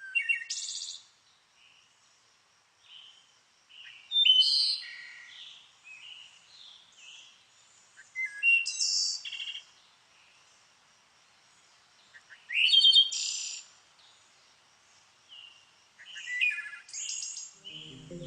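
A songbird singing short, rapid, high-pitched phrases of about a second each, roughly every four seconds, with fainter chirps and a faint steady high note between them.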